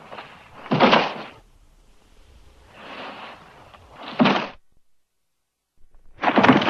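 Bodyfall sound effects: a person's body hitting the floor three times, about a second in, about four seconds in and near the end. Each heavy thud comes after a quieter, shorter lead-in sound.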